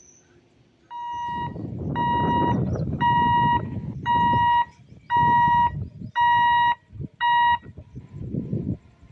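Electronic warning beeper sounding seven short, evenly spaced beeps, about one a second, over a low rumbling noise.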